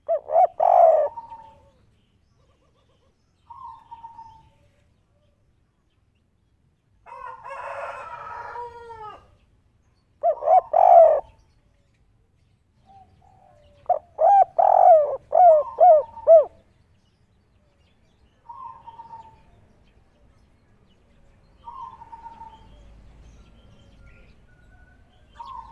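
Spotted dove (derkuku), a 'kuk 3' three-note cooing bird, cooing in repeated phrases of low coos. Loud phrases near the start and in the middle include a run of about six notes. Fainter single coo notes come in between.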